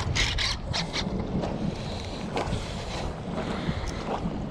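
Wind buffeting the microphone on a kayak on choppy water, with water slapping against the hull. A few sharp clicks and knocks come in the first second, and single ones follow later.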